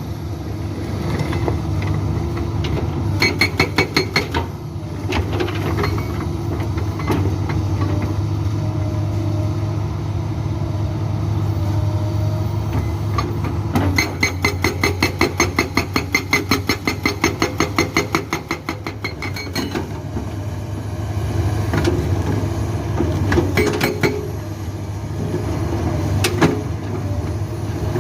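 Soosan SB81 hydraulic breaker on a Komatsu PC200-8 excavator hammering rock in runs of rapid, evenly spaced blows, several a second: a short run about three seconds in, a long run of about six seconds in the middle, and brief runs near the end. Underneath, the excavator's diesel engine runs steadily under load.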